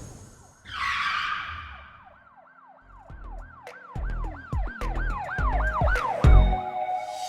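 Intro sound effect: a swish, then a yelping siren-like tone that rises and falls about three times a second over low thumps and clicks that grow louder toward the end.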